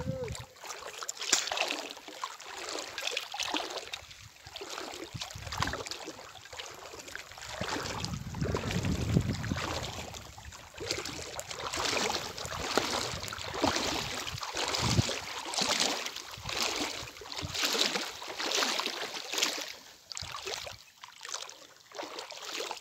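Footsteps swishing through wet grass and shallow water at a lake edge, about one step a second, with wind buffeting the microphone at times.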